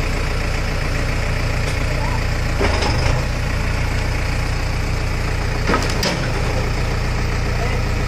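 JCB backhoe loader's diesel engine idling steadily, with two short metallic clanks about three seconds and six seconds in.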